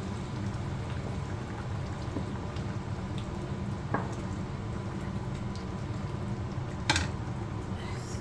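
Freshly boiled water being poured into a pot of rice and meat for pilau, a steady pouring rush, with a light clink about four seconds in and a sharper knock near seven seconds.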